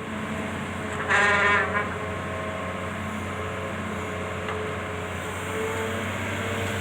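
Excavator engine running steadily with a low hum, with a brief louder pitched sound about a second in.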